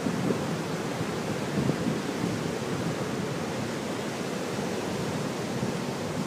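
Surf breaking and washing up over a sand-and-pebble beach: a steady rush of waves, with some wind.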